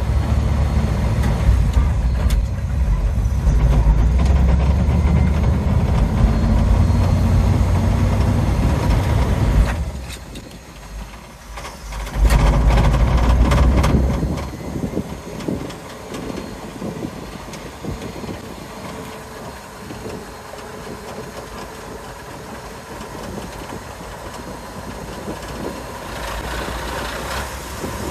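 The 1954 Dodge M37 military truck's flathead straight-six engine running as the truck drives off. A heavy low rumble lasts about ten seconds, then dips briefly. A sharp knock comes about twelve seconds in, with a short loud stretch after it, and then a steadier, quieter run.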